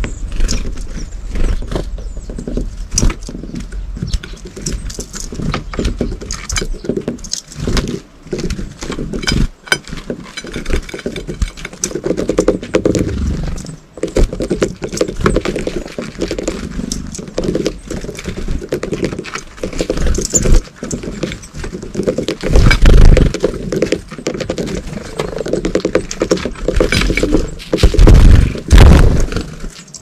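Eurasian blue tits pecking at seed-and-fat balls and hopping on a ceramic plate: a rapid, irregular run of taps and clicks. A few loud low thumps stand out near the end.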